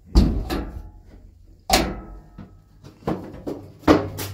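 Five sharp metal bangs and clanks, unevenly spaced, some with a short ringing tail. The first and the fourth are the loudest. A faint, steady low hum runs beneath them.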